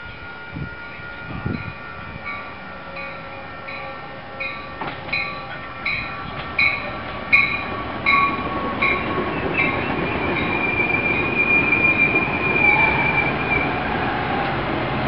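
Metra bi-level commuter train arriving: a warning bell rings about once every 0.7 seconds, growing louder as the train nears. From about ten seconds in, the passing cars add a rising rumble and a steady wheel squeal that lasts about four seconds.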